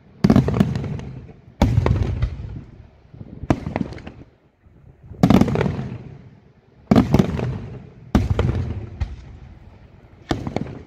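Daylight fireworks shells bursting overhead: about eight loud bangs, one every one to two seconds, each followed by a long rolling echo that dies away before the next.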